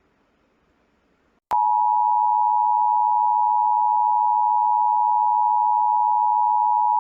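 Cell phone Wireless Emergency Alert tone: one loud, steady tone that starts with a click about a second and a half in and holds without a break.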